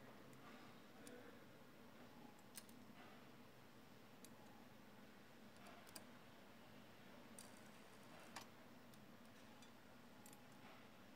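Near silence with a faint steady hum, broken by half a dozen faint, scattered clicks and taps of a small hand tool and parts against the transmission's metal valve body.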